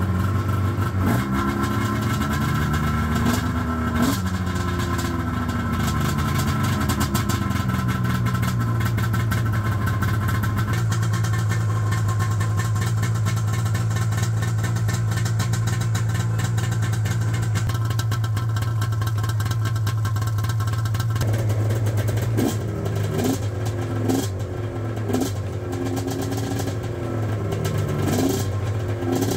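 Arctic Cat M7 snowmobile's two-stroke twin with twin pipes, freshly started and running at a fast idle, blipped with the throttle: the revs rise and fall a few times in the first few seconds, hold steady, then rise and fall repeatedly over the last seven seconds.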